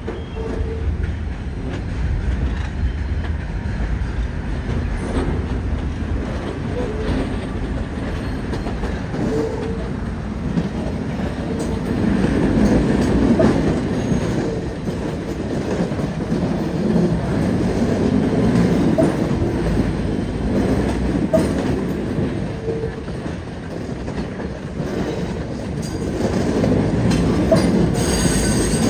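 Subway train rolling slowly through yard switches: a steady rumble of wheels on rail, clacking over the joints and frogs, with brief wheel squeals. It grows louder as the cars pass below, around the middle and again near the end.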